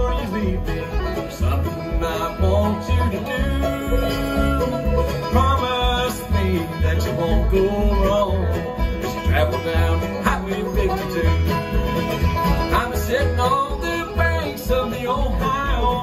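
Live bluegrass band playing a tune on banjo, mandolin, fiddle, acoustic guitar and upright bass, with upright-bass notes marking a steady beat.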